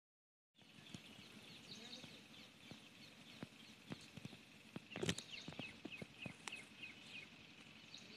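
Faint outdoor ambience of small birds calling, a quick run of short falling chirps, over a light hiss. Scattered sharp clicks and knocks throughout, with a louder cluster of knocks about five seconds in.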